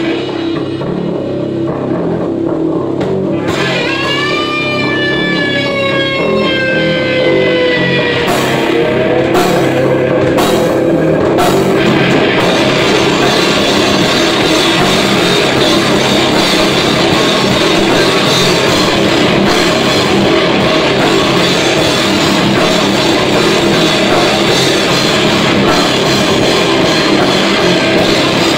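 Heavy metal band playing live. A low guitar and bass riff is followed by a long held guitar note sliding slowly down in pitch, then a few separate drum and cymbal crashes. About twelve seconds in, the full band comes in with pounding drums, cymbals and guitars.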